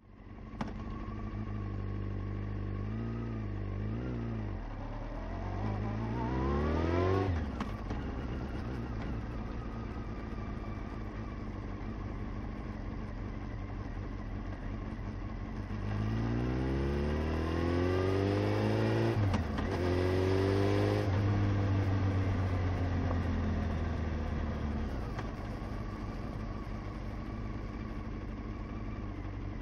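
Honda CBR sport bike's engine heard from on board, running steadily and then pulling away, its pitch climbing and dropping sharply at a gear change. Later it accelerates again through two quick shifts, holds a steady cruise, and eases off near the end, with wind and road noise under it.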